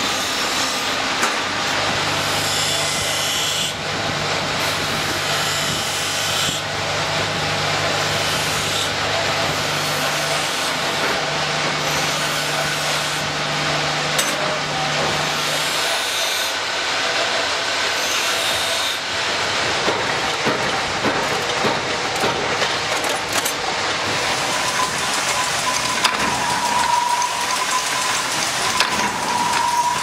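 Metal padlock parts held against a spinning belt-driven grinding wheel: a steady rasping grind over an electric motor hum. About halfway through the hum stops, and scattered clicks and knocks follow, with a steady high whine in the last few seconds.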